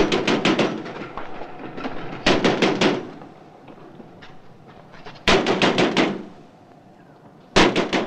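Fist banging on a door: four bouts of rapid, heavy knocks a couple of seconds apart.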